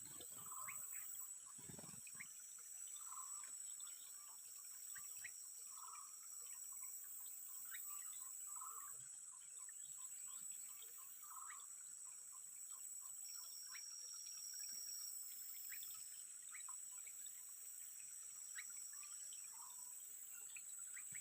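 Faint outdoor nature ambience: a steady high-pitched drone, a short call that repeats about every three seconds, and many small scattered chirps.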